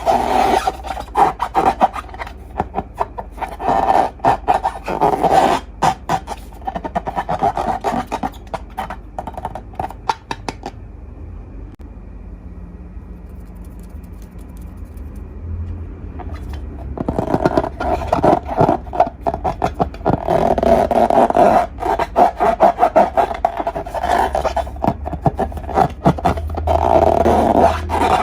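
Slime being squished and worked by hand, a dense run of sticky clicks and crackles, with a quieter, duller stretch in the middle.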